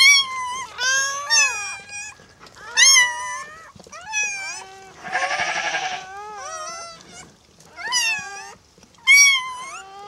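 Newborn Karakachan puppy crying: a run of about ten high, squeaky calls that rise and fall in pitch, with a rougher, buzzier cry about five seconds in.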